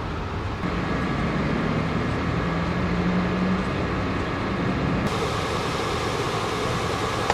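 Steady outdoor engine noise with a low hum, typical of a vehicle engine idling. About five seconds in it changes abruptly to a brighter, hissier street noise.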